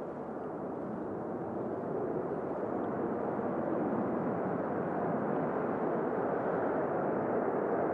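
Jet engines of stealth fighter jets taking off: a steady, muffled rushing noise that slowly grows louder.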